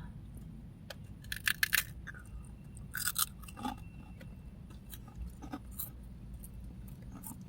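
Crunching and chewing of spicy puffed rings, in a few short clusters of crisp crackles.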